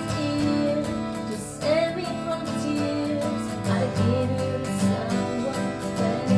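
Acoustic guitar playing a song, with a voice singing over it in places.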